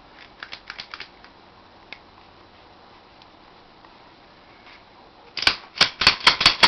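Smith & Wesson 4003 semi-automatic pistol's action being worked, its trigger freshly oiled: a few soft clicks near the start, then from about five seconds in a rapid run of sharp metallic clicks, several a second.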